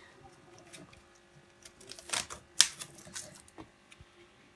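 Scattered small clicks and knocks of a LiPo battery's lead being plugged into a quadcopter and the pack being handled. The sharpest click comes about two and a half seconds in.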